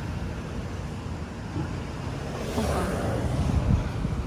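City street traffic: a steady rumble of cars, with one vehicle rushing past about halfway through.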